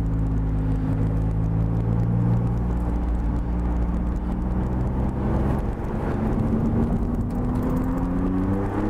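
Maserati MC20 Cielo's twin-turbo V6 running steadily under light throttle, heard from inside the open cabin. Its pitch begins to rise in the last few seconds as the car accelerates.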